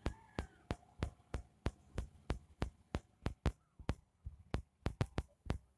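Sharp, regular clicks or taps, about three a second, over a faint low hum.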